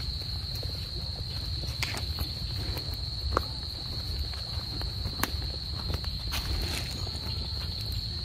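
A steady high-pitched insect trill that runs unbroken, with scattered clicks and rustles of footsteps on leaf litter and a low rumble underneath.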